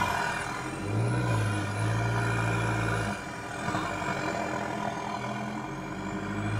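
Toyota Hilux 2.8-litre four-cylinder turbo-diesel with a 3-inch DPF-back exhaust, revving up under load as the truck crawls over rutted rock. The revs rise and hold for about two seconds starting about a second in, drop back, then rise and hold again near the end.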